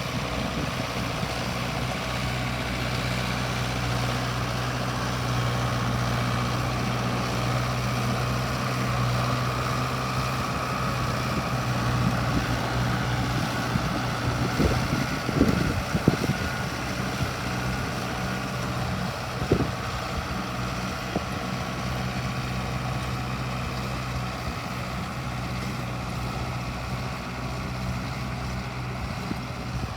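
Mahindra Arjun Novo 605 DI tractor's diesel engine running steadily as it drives a rotavator through the soil. A few sharp knocks come about halfway through.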